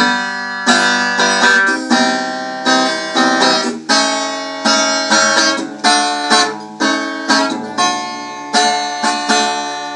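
Instrumental break of a sertanejo song on acoustic guitar: a run of picked and strummed chords, each ringing out before the next, with no singing.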